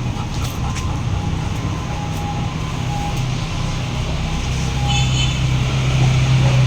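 A steady low machine hum that grows louder about halfway through, with a few faint high chirps about five seconds in.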